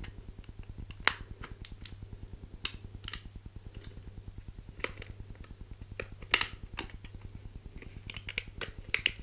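Irregular sharp clicks and crackles of plastic packaging being opened to take out a RAM memory stick, over a steady low hum.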